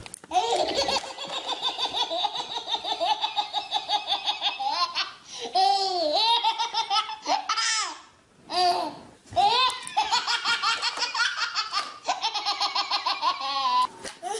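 A baby laughing hard in long, rapid belly-laugh fits, broken in the middle by a few short gaps and rising-and-falling squeals.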